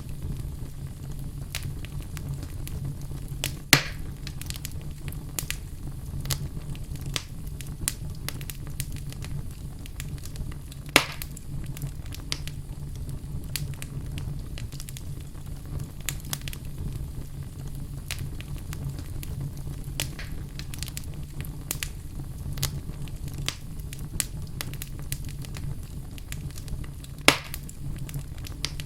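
Wood fire burning in a fireplace: a steady low rumble of flame under constant irregular crackling, with three louder pops about 4, 11 and 27 seconds in.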